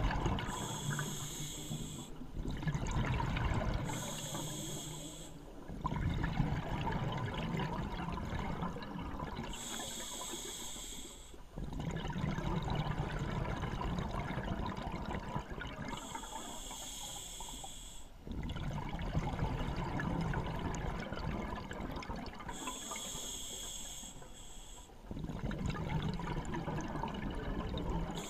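Scuba diver breathing through a regulator: five hissing inhales, about six seconds apart, each followed by a longer stretch of bubbling exhaust bubbles.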